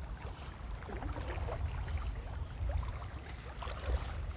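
Seawater sloshing and splashing in irregular strokes as legs wade through knee-deep shallows, with a steady low wind rumble on the microphone.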